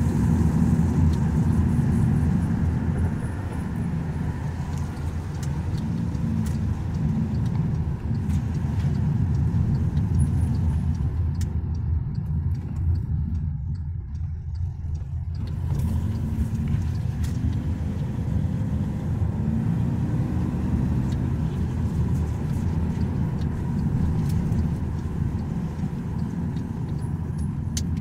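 A moving bus heard from inside: steady engine and road rumble. It drops away for a few seconds around the middle, then the engine note rises again as the bus pulls away.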